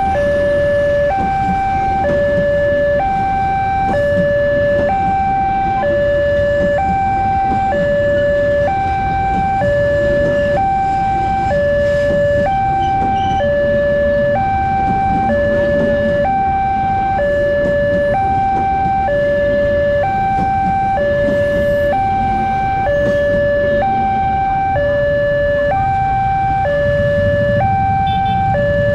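Railway level-crossing warning alarm sounding continuously as an electronic two-tone signal, alternating evenly between a low and a high tone each held about a second. A passing train rumbles underneath.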